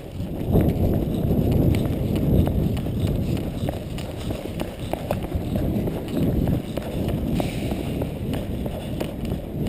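A person running on concrete: quick footfalls over a low rumble, starting up a moment in.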